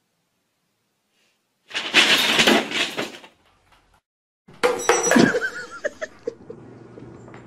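A paper bag rustling loudly for about a second and a half, then after a short pause plastic water bottles knocking over with sharp clatters and a plastic sheet crinkling.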